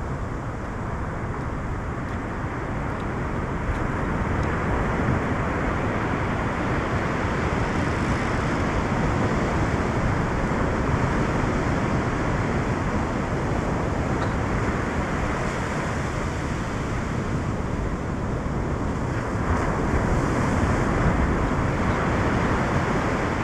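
Surf breaking and washing up a sandy beach in a steady rush, swelling louder about four seconds in and again near the end, with wind on the microphone.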